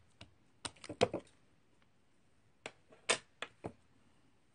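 A series of sharp taps and clicks in two main clusters, about a second in and about three seconds in, from stamping and inking supplies being handled on the craft desk.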